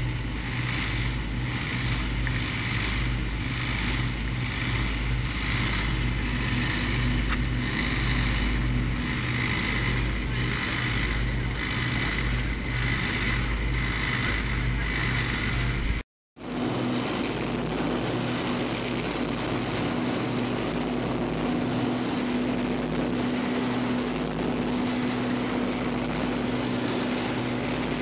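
A motorboat's engine running steadily under the rushing water of its wake. The sound drops out for a moment about halfway through, then resumes with the engine tone more prominent.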